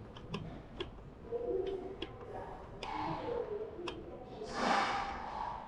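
Footsteps clicking on a hard floor at an uneven walking pace, with faint voices in the background and a brief rush of hissing noise about four and a half seconds in.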